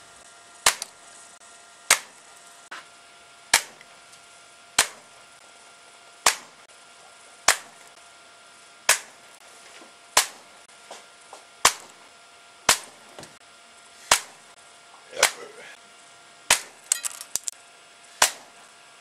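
Air pistol firing repeatedly, roughly one sharp shot every second and a half, about fourteen shots, with a quick cluster of smaller clicks near the end. A faint steady tone runs underneath.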